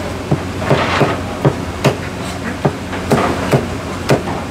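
Heavy Chinese meat cleaver chopping a roast bird through the bone onto a thick wooden chopping block: a run of sharp chops, roughly two a second and unevenly spaced.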